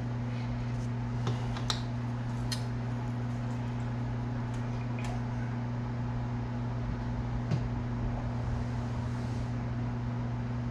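Steady low electric hum, as of a fan or motor-driven appliance running in a small room, with a few faint light clicks and taps from handling small tools at the rod handle.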